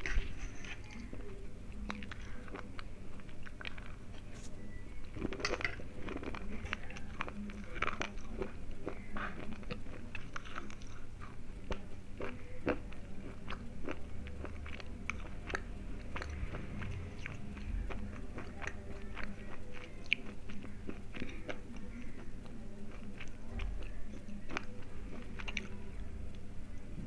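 Close-up biting and chewing of slate pencils: a run of sharp, irregular crunches and crackles as the brittle clay sticks snap and are ground between the teeth.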